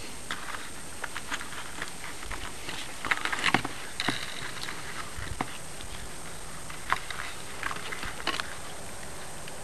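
Hands handling a foam RC airplane while fitting its battery and plug: scattered small clicks, taps and rustles, busiest a few seconds in.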